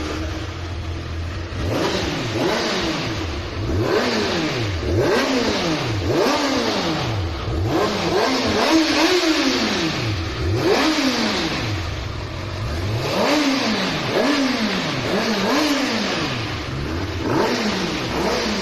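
Kawasaki ZX-6R's 636 cc inline-four engine revved over and over in quick throttle blips, about one a second, its pitch rising and falling with each blip.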